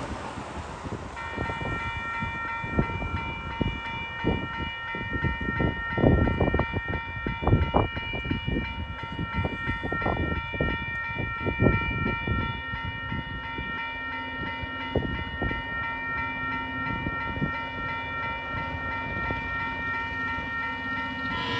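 Level crossing warning bells start ringing about a second in and keep ringing steadily, while wind buffets the microphone in irregular gusts through the first half. A low steady hum joins about halfway through as the train draws near.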